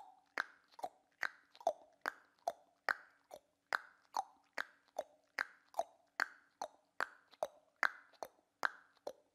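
Tongue clicks: the tongue struck against the roof of the mouth in a steady, even series of about two and a half clicks a second, alternating between a lower and a higher pop.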